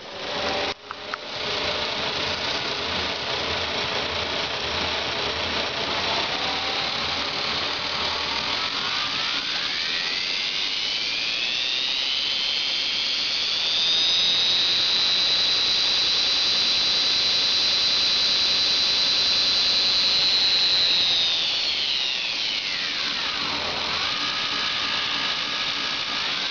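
Zoomie 66 2x72 belt grinder running on its 1 HP TEFC motor under a variable-frequency drive, with a few clicks at the start. As the speed is turned up, a whine rises over several seconds and holds high and louder near top speed (about 2300 fpm). It then falls away as the speed is turned back down, and starts rising again at the very end.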